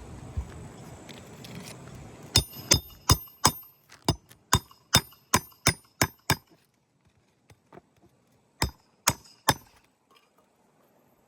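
Hammer blows with a metallic ring during roof shingle repair: a quick run of about a dozen strikes, roughly three a second, then three more near the end.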